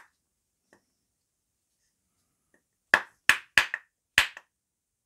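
Spine of a liner-lock folding knife struck against a stick: a sharp knock right at the start, then a quick run of four or five sharp knocks about three seconds in, a spine-whack test of the liner lock's lockup.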